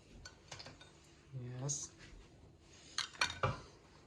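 Die-cast toy cars clinking and knocking against a dish as one is set into the cold water, with a quick cluster of sharp clinks, the loudest, about three seconds in.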